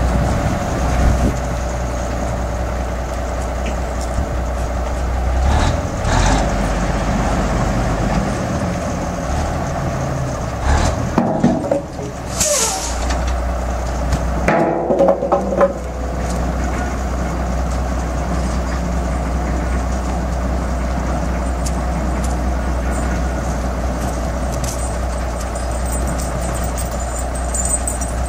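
Engine of an old lattice-boom crawler crane running steadily under load as it lifts and swings a narrowboat. A short hiss comes about twelve seconds in, and a few clanks follow a couple of seconds later.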